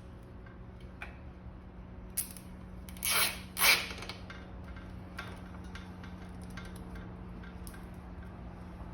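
Two quick rasping zips of plastic cable ties being pulled tight around e-bike wiring, about three seconds in, with scattered light clicks of handling around them.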